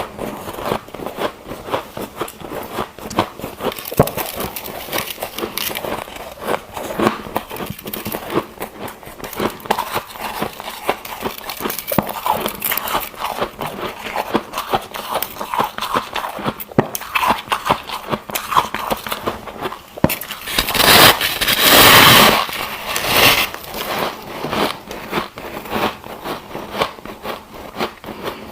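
Ice being crunched and chewed close to the microphone: dense, irregular crackling and cracking. A little after two-thirds of the way through comes a louder, noisier crunch lasting about three seconds.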